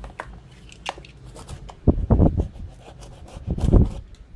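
Cardboard box and packaging being handled and rubbed, with small clicks throughout and two louder bouts of scraping and bumping, about two seconds in and again near the end.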